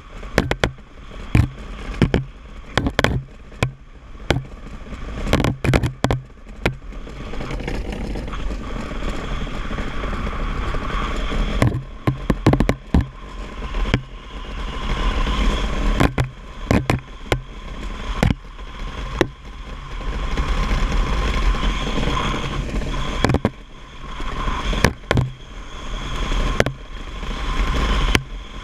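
DN iceboat running over lake ice: a steady low rumble and hiss from the steel runners sliding on the ice, broken by frequent sharp knocks and clatters. A faint whine grows stronger in the second half.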